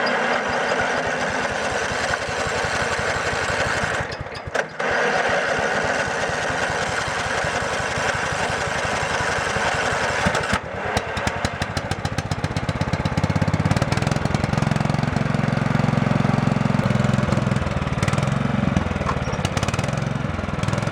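Riding lawn mower engine running with its muffler refitted, faltering briefly about four seconds in, then settling into a deeper, louder note from about fourteen seconds.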